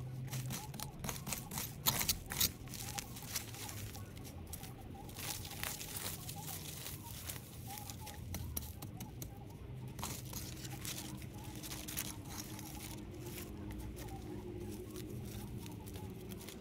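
Flower-bed cleanup work: irregular crunching, tearing and crackling of plant debris and soil being handled, loudest about two seconds in, over a steady low hum.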